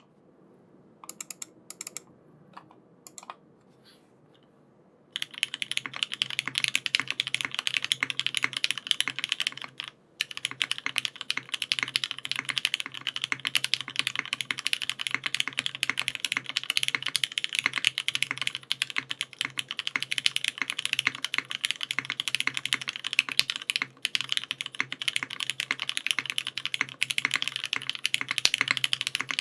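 Geon Glare65 custom mechanical keyboard (brass bottom case, aluminium plate, no foam) with lubed Cherry MX Black linear switches and GMK keycaps being typed on. A few single keystrokes come first, then fast continuous typing from about five seconds in, with two short pauses.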